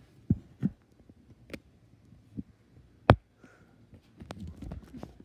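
Irregular soft thumps and sharp clicks, the loudest about three seconds in, with a denser patch of thumps and rustle near the end: handling noise from a handheld phone being moved about.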